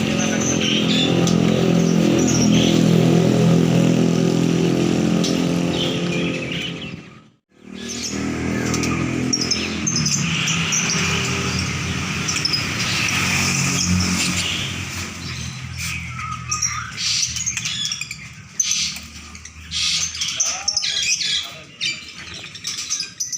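Small songbirds chirping and twittering over a nearby motor vehicle's engine running. The engine is loudest in the first half, and there is a brief cut-out about seven seconds in. After about fifteen seconds the engine fades, leaving mainly the birds' quick chirps.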